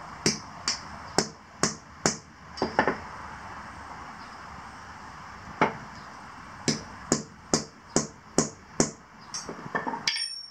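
Hammer striking a steel punch set in the holes of a flat steel plate, marking pilot-hole spots in the pavement beneath: a run of sharp metallic taps, about two to three a second. After a pause of about three seconds with a single tap comes a second run, then a few light clinks near the end.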